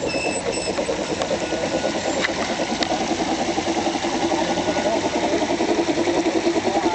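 Engine-like running sound with a fast, even pulse, growing a little louder. A few short high beeps right at the start.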